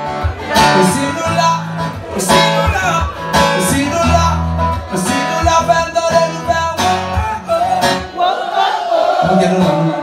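Acoustic guitar strummed, with a man singing over it in a live solo performance.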